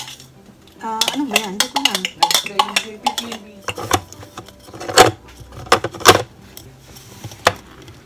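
Hard plastic clattering and sharp knocks as the blade assembly, bowl and lid of a small electric food chopper are handled and fitted onto its base. The loudest knocks come about five and six seconds in.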